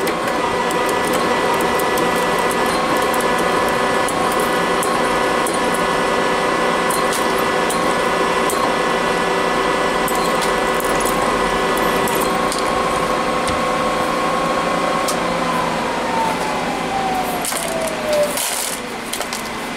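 A twist drill cutting a tap-drill hole in a steel block, the machine's motor whining steadily with scattered ticks from the chips. About fifteen seconds in the whine falls steadily in pitch as the spindle spins down.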